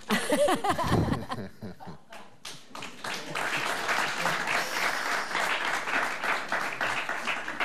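Studio audience applauding: a few scattered claps about a second and a half in, thickening into steady applause from about three seconds.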